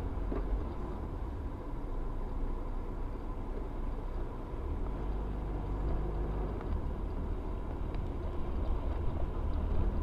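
Road noise inside a moving car, recorded by its dashcam: a steady low rumble of engine and tyres.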